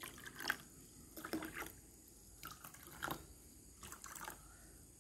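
Water trickling faintly as it is poured from a plastic cup into clear plastic cups, in several short pours that come and go.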